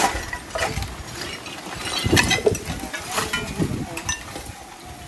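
Garbage being picked up off the ground and put into a woven plastic sack: scattered clinks, knocks and scrapes of mixed rubbish.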